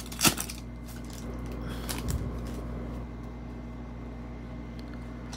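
Plastic foil wrapper of a Prizm basketball card pack crinkling as it is torn open, with one sharp crackle just after the start, then softer rustling as the cards are slid out of the pack.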